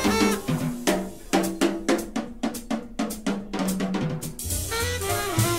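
Jazz drum kit break: snare, bass drum and cymbal hits played alone for about three seconds, roughly four strokes a second, in a small swing group. The full band with double bass comes back in near the end.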